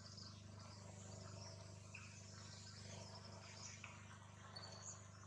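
Faint forest ambience of insects, a steady high chirring with a few short high chirps, over a low steady hum.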